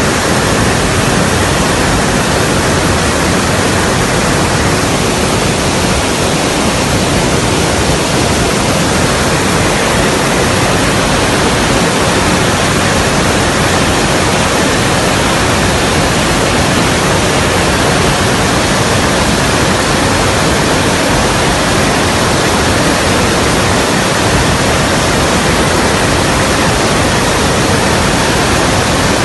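Steady, loud rushing roar of an Ilyushin Il-76 transport aircraft in flight, a constant wash of engine and airflow noise that does not rise or fall.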